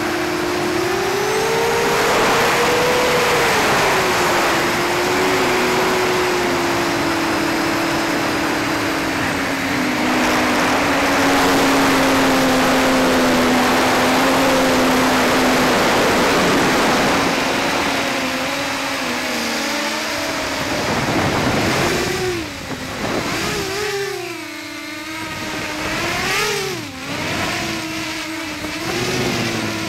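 Hubsan H501SS quadcopter's brushless motors and propellers whining, heard through the onboard camera with wind rushing over the microphone. The pitch holds fairly steady at first, then swings rapidly up and down in the last third as the throttle is worked.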